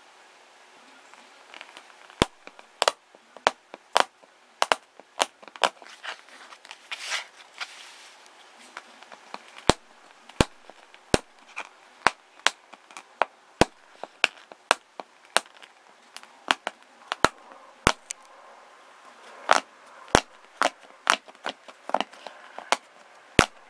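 Sharp, irregular taps and clicks of a finger tapping and pressing a dried, hardened blob of liquid electrical tape, about one or two a second.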